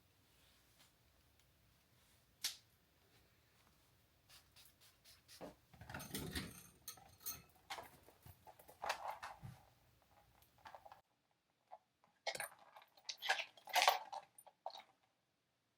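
Faint rustling and scattered light clicks and knocks of someone handling clothes close by, with a denser flurry partway through and again near the end.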